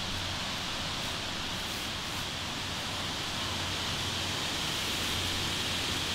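Steady, even hiss of background noise with no distinct event.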